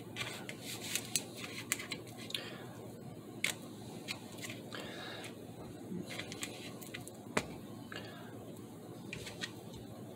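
Faint handling sounds as sliced banana strips are laid onto a slice of toast on a paper plate: scattered soft taps and a few sharp clicks over a steady low room hum.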